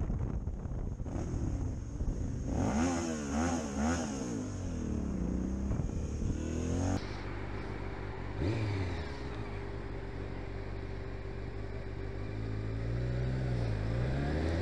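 Motorcycle engines heard from the riders' own cameras. The first engine rises and falls in pitch several times under the throttle. About seven seconds in the sound changes suddenly to another motorcycle running at a steady pitch.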